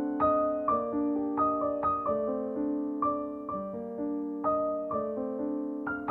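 Soft background piano music: slow, gentle notes struck about twice a second and left to ring.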